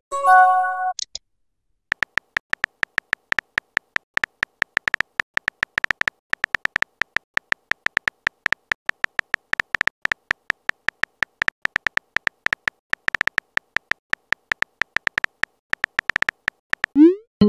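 Simulated phone-keyboard key clicks from a texting-story app, a rapid even run of short tapping clicks as a message is typed out letter by letter. A short chime sounds at the start, and near the end a rising swoosh and a chime as a message is sent.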